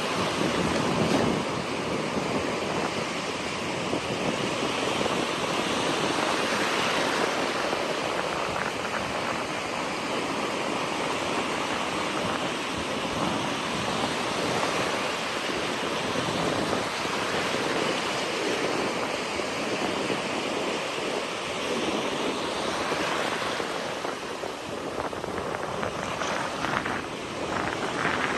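Ocean surf: waves breaking and washing on the shore in a steady rushing wash that swells and eases, with some wind on the microphone.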